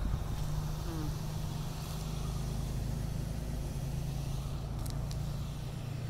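A steady low mechanical hum, like an engine or machine running at a constant speed, over a faint background rumble.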